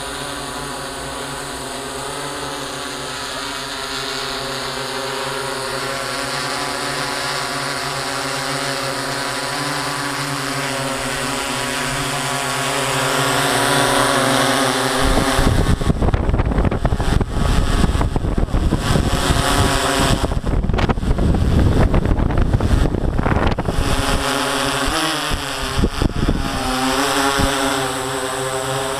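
DJI S800 hexacopter's six electric motors and propellers humming steadily in flight. For about ten seconds in the middle, a heavy, rough rumble of air buffeting the microphone drowns out the hum as the drone passes close overhead. Near the end the hum returns, wavering in pitch as the motors adjust.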